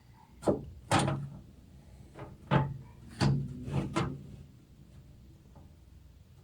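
Knocks and clunks from a hard drive being handled in a desktop PC case, about seven of them over the first four seconds, then quiet.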